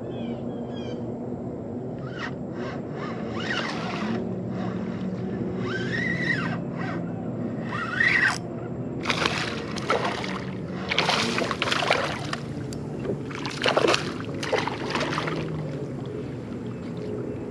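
Water splashing and sloshing against the kayak in a series of short bursts through the second half, over a steady low hum.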